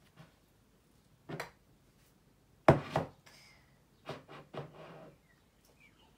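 Makeup pencils and cases being handled in a makeup bag, knocking together: a handful of short clacks and rustles, the loudest about halfway through.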